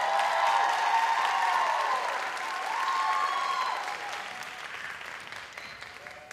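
Audience applauding with whoops and cheers. It is loudest in the first few seconds and dies down toward the end.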